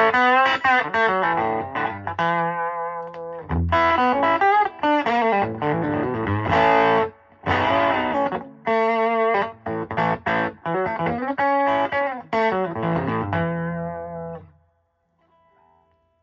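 Electric guitar, a Telecaster on its bridge pickup, played through an Elk Custom 30 valve amp with an EL84 power section: phrases of chords and single notes with short breaks. The last chord rings out and fades about a second and a half before the end, leaving a faint amp hum.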